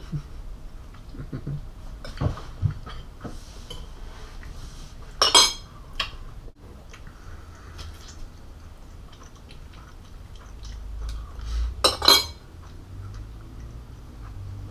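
Forks and spoons clinking and scraping on ceramic dinner plates during a meal, with scattered small clicks and two louder clattering clinks, one about five seconds in and one near the end.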